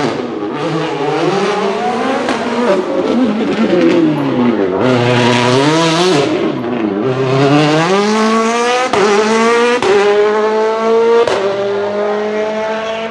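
Hyundai i20 WRC rally car's turbocharged 1.6-litre four-cylinder engine revving hard up and down as the car slides, with tyres squealing. Later the revs climb in one long pull, cut briefly twice, and drop sharply near the end.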